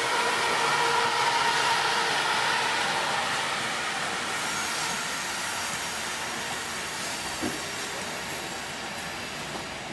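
Amtrak Superliner bilevel passenger cars rolling slowly by with a steady hiss, and a high brake squeal that fades over the first few seconds as the train slows. There is a single light knock near the end.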